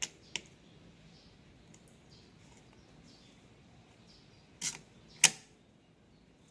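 Two sharp clicks near the start, then two louder clacks about half a second apart near the end, with a short ring after the second, over faint background noise; no engine running.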